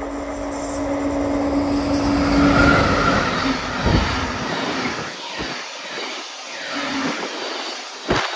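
Freight train rolling through a station, loudest about two to three seconds in, with a steady hum that stops about three and a half seconds in. Then the wagons run past with rushing noise and a few dull low thuds.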